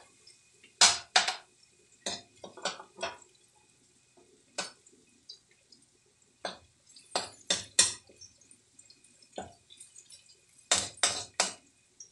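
Metal ladle scraping and clanking against a metal wok in short bursts while onions and garlic are stirred as they sauté.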